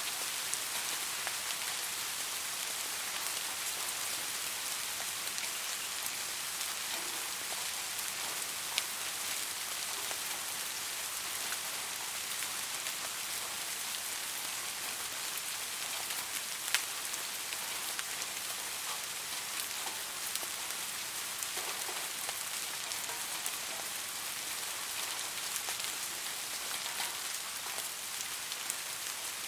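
Soft, steady rain falling, with a constant fine hiss and scattered individual drops ticking, a couple of them a little louder.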